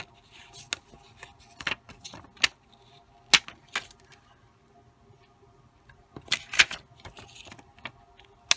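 Irregular sharp clicks and crackles of a clear plastic sheet of stick-on gems being handled as the gems are peeled off it, with a denser burst of crinkling about six seconds in.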